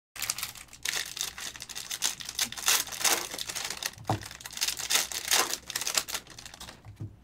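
Foil trading-card pack wrappers crinkling and tearing in many short crackles as packs are ripped open and the cards pulled out.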